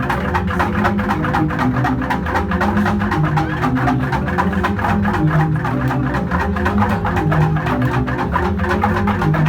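Jegog, a Balinese bamboo gamelan, playing loudly: rapid, dense strikes on bamboo tube xylophones over deep, shifting bass tones.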